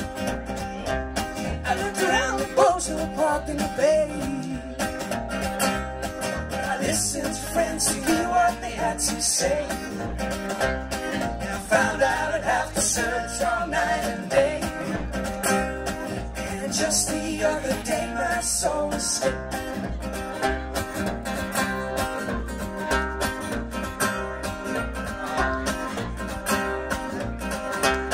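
Live acoustic band playing a song: several strummed acoustic guitars and a keyboard, with a steady beat.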